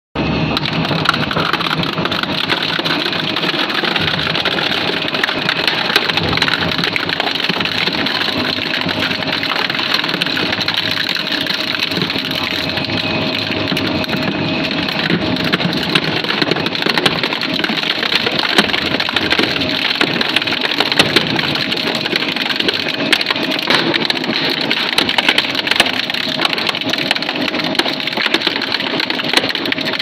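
Double-shaft shredder tearing up a plastic children's ride-on toy car: continuous crushing with many sharp plastic cracks and snaps, over a faint steady machine hum.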